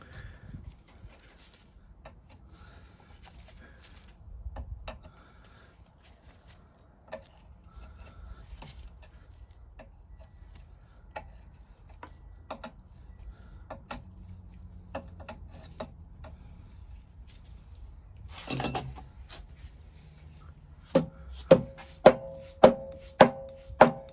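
Hand tools clinking and tapping on the metal parts of a vintage Lister stationary engine during strip-down, with a short scraping rattle, then near the end a steady run of sharp metal-on-metal strikes about two a second, each ringing briefly.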